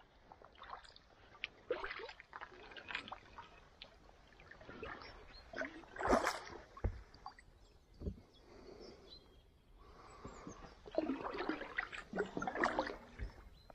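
Kayak paddle blades dipping into calm river water: irregular splashes and drips, loudest about six seconds in and again in a run of strokes near the end.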